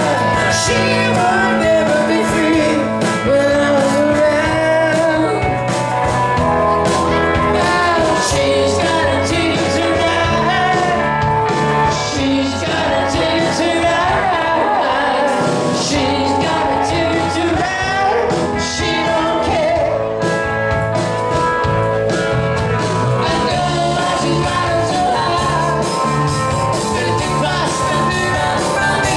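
A live band playing: a man singing over electric guitars and drums.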